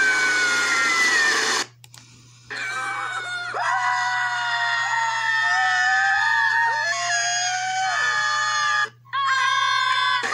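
Screams from a cartoon screaming compilation, played through a computer's speaker: a long scream falling in pitch, a short pause, a long wavering scream that jumps in pitch several times, then another scream after a brief break near the end. A steady low hum runs beneath.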